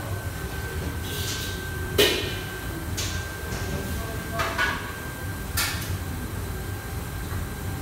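Busy commercial kitchen: a steady low rumble of extraction fans with a thin steady whine above it, broken by several sharp clanks of metal pans and utensils, the loudest about two seconds in.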